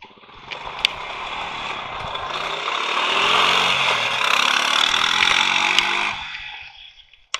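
Honda Rancher ATV's single-cylinder four-stroke engine running as it is ridden, getting louder over the first few seconds, climbing in pitch as it accelerates past close by, then fading as it pulls away. A sharp click comes near the end.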